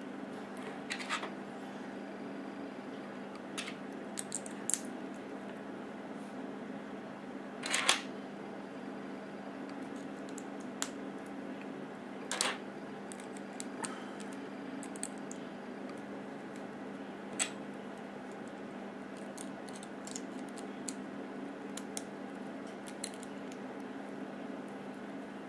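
Plastic Lego bricks clicking and tapping as they are picked up from a table, handled and pressed together, in scattered single clicks with the loudest about eight seconds in. A steady low hum runs underneath.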